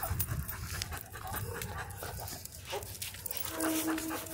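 Two Rottweilers panting as they walk on leash and scramble up onto a concrete bench, under a low rumble that is strongest in the first second or so. A held whine-like tone comes in near the end.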